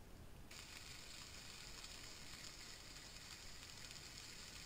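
Rabbit joints sizzling faintly as they brown in butter and oil in a frying pan. The steady sizzle starts abruptly about half a second in.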